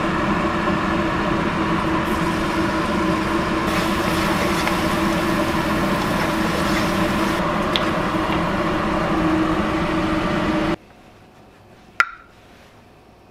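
Steady whirring hum of a kitchen exhaust fan over the stove while a wok of garlic cooks. It cuts off abruptly about eleven seconds in, and a single light clink follows as a clam shell is set into a steamer pot.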